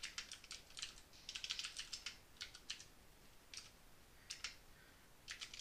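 Faint computer keyboard typing: quick runs of keystrokes with short pauses between them, thinning out in the second half.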